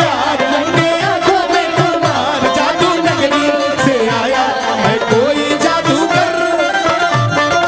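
Live band playing a Bhojpuri gaari geet (wedding folk song) tune: a steady drum beat under a bending, ornamented melody line.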